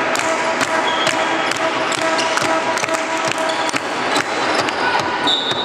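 Echoing handball game noise in a sports hall: sharp knocks on an even beat of about two a second, with voices underneath and a high steady tone coming in near the end.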